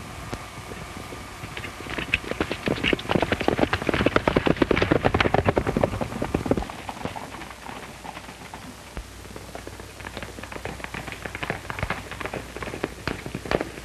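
Horses' hooves galloping on a dirt track, a rapid clatter that swells loud over the first few seconds and dies away by about seven seconds, then lighter hoofbeats again near the end, heard through the hiss of an old film soundtrack.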